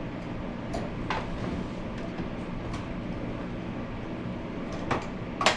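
Steady low hum in the room with a few light clicks and taps from handling wire and light-fixture parts, the loudest near the end.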